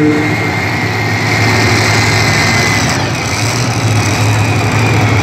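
Engines of multi-engine modified pulling tractors running loud and steady, a deep hum under a faint high whine.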